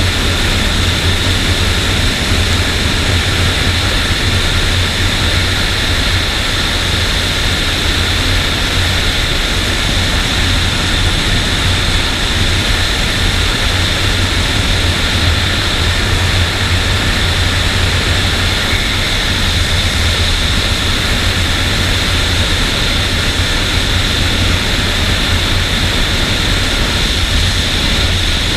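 Suzuki Bandit's inline-four running at a steady cruising speed, heard as a constant drone mixed with wind rush on the camera microphone, with no revving or gear changes.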